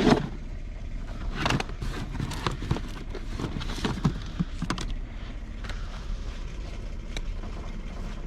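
Scattered knocks and clatters of curbside junk being picked up and loaded, loudest right at the start and thinning out after about five seconds, over the steady low hum of a vehicle.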